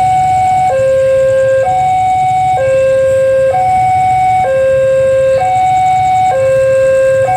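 Railway level-crossing warning alarm sounding an electronic two-tone signal, alternating evenly between a high and a low tone about once a second, warning that a train is approaching the crossing.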